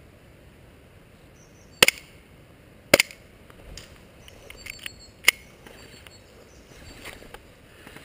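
Sharp cracks of airsoft guns firing: a quick double shot about two seconds in, another double about a second later, and a single shot about halfway through, over outdoor background noise with some lighter clicks and rustling.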